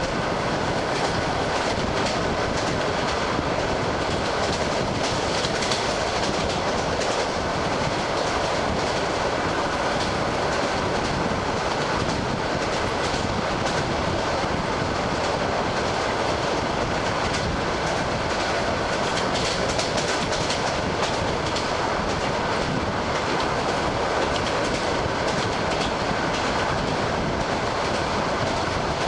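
ED9M electric multiple unit running at speed, heard aboard: steady rumble and rushing noise with the rapid clatter of its wheels over the rail joints.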